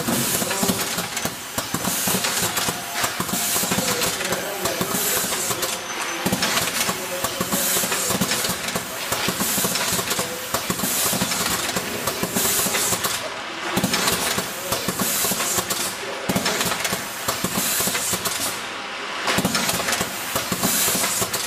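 Automated strawberry-punnet packaging machine running: continuous mechanical clatter with hissing from its pneumatic cylinders and air lines.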